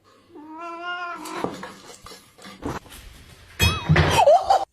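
An animal calling: a steady, held call about half a second in, then a louder, wavering call near the end.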